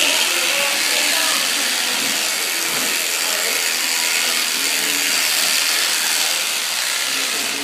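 Electric shearing handpiece running steadily as it cuts through an alpaca's fleece: a continuous buzzing hiss with a faint high whine.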